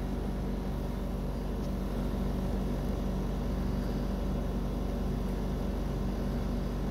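A steady, even, low machine hum with no change throughout.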